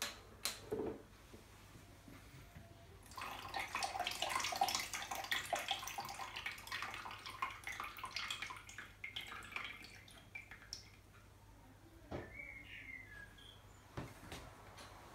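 Stop bath being poured out of a Minox daylight developing tank into a plastic measuring jug: a splashing, trickling pour that starts about three seconds in and tapers off after about seven seconds. A few small plastic clicks from handling the tank come before and after.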